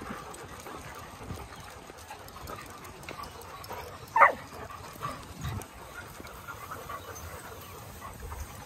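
A dog barks once about four seconds in, a short loud call standing out over faint background sounds of dogs.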